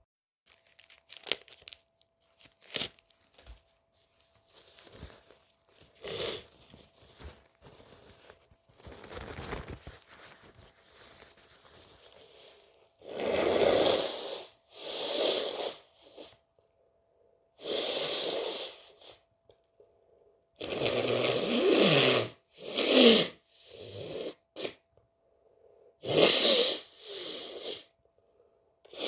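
A person with a cold sniffling and rustling, then a run of loud, noisy nose blows and sneezes from about halfway in, each lasting up to a second and a half.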